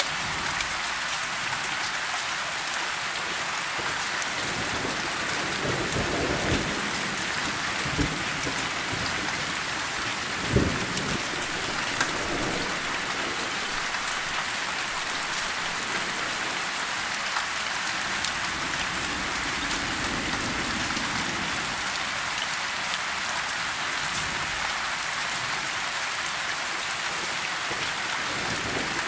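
Steady rain falling, with thunder rumbling low underneath: soft rolls about six seconds in and again near twenty seconds, and one sharper, louder clap about ten seconds in.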